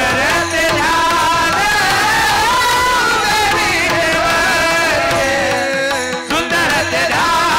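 Marathi devotional kirtan singing: a voice holding long, gliding melodic lines over instrumental accompaniment, with a short break about six seconds in.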